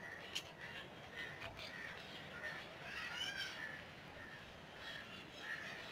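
Crows cawing, many short calls one after another, with a sharp click about half a second in.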